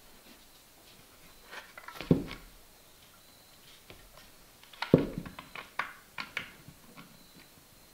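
A bear skull being handled on a cardboard-covered table, lifted and turned: two clusters of knocks and scrapes, one about two seconds in and a longer one from about five seconds, the loudest knock near the start of the second.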